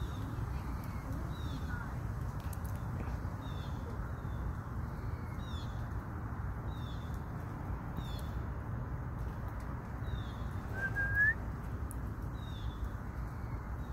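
A small bird repeats a short, high, down-slurred chirp about once every second, over a steady low background rumble. About three-quarters of the way through, a single louder rising whistled note sounds.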